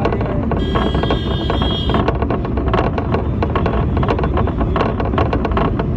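Bus clattering and rattling as it drives, with a steady low running noise underneath. A horn sounds for about a second and a half near the start.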